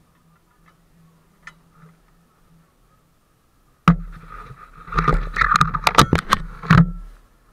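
Handling noise on an action camera: a sudden loud knock about four seconds in, then close rubbing and a quick run of sharp clicks and knocks against the camera's housing or mount for about two seconds, stopping abruptly.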